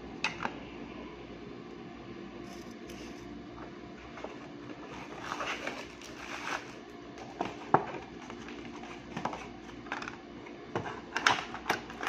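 Paper and a small cardboard box being handled: rustling, with a scatter of sharp clicks and taps, several close together near the end. A steady low hum sits underneath.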